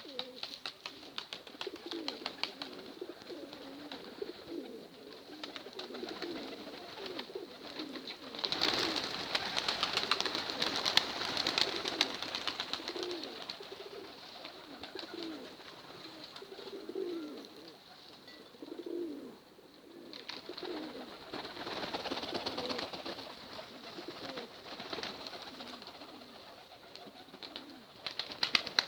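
Domestic pigeons cooing over and over in short low calls. Louder stretches of rustling noise come in about a third of the way through and again about two-thirds through.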